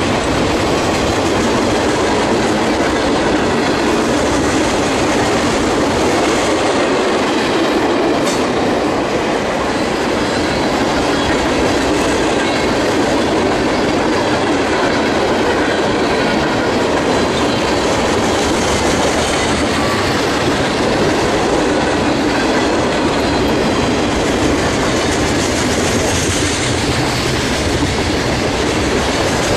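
Freight train's cars rolling past at speed: a loud, steady rumble and clatter of steel wheels on the rails, with no break.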